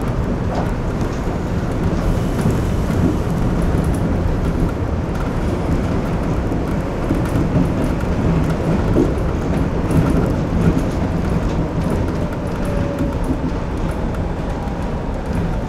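Shonan Monorail suspended monorail car running along its track, heard from inside the cab as a steady low rumble of its rubber-tyred running gear and motors.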